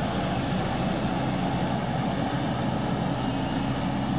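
Vibratory roller's diesel engine running steadily.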